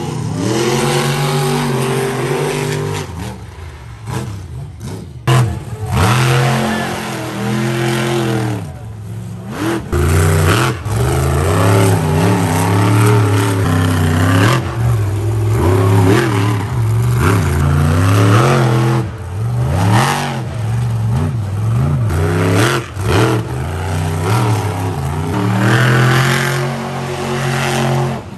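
Monster truck engine revving hard in a freestyle run, its pitch climbing and dropping again and again as the throttle is blipped and held.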